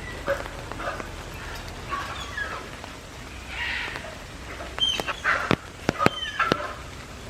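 Malayan tapirs squeaking in excitement: a string of short, high chirps, several sliding down in pitch. A few sharp clicks come about five seconds in.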